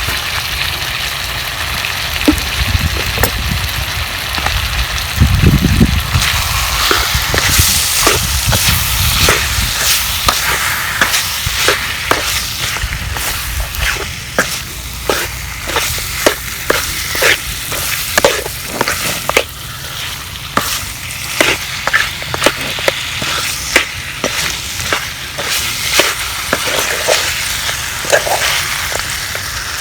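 Country chicken frying in ghee in a kadai, sizzling steadily. From about seven seconds in, a spatula scrapes and knocks against the pan as the pieces are stirred, about once or twice a second. A low rumble runs under the sizzle for the first several seconds.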